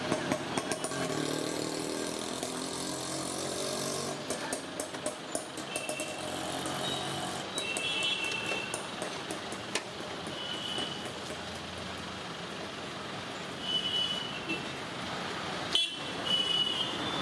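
Street traffic: vehicles running past, with a few short high tones and scattered light clicks.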